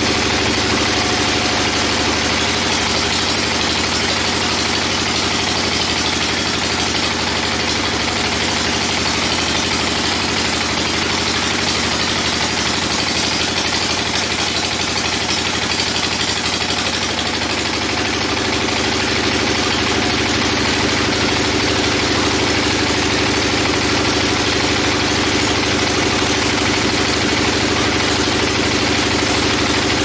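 Band sawmill running steadily, its blade sawing lengthwise through a teak log on the carriage.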